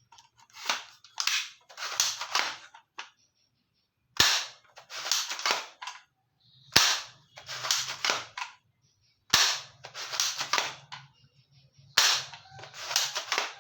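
Toy rifle fired in repeated bursts: each burst opens with a sharp click, followed by about two seconds of rapid gunfire sounds, repeating roughly every two and a half seconds.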